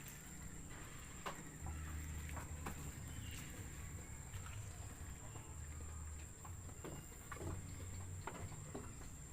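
Goats in a pen: scattered light clicks and knocks over a low steady hum, with a faint steady high whine.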